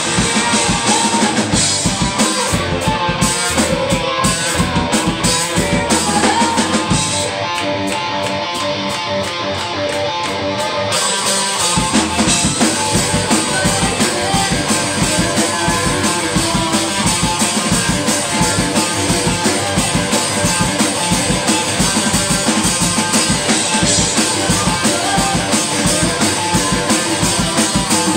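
Live rock band playing: electric guitars, electric bass and drum kit. From about seven seconds in the music thins out and drops a little in level, and about twelve seconds in the full band comes back in with driving drums.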